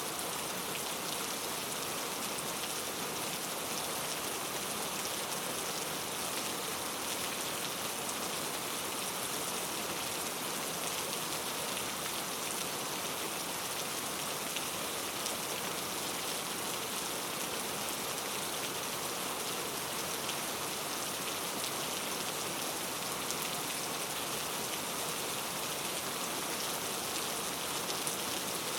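Steady rain falling on rainforest foliage, a dense even hiss of drops with faint individual drop ticks scattered through it.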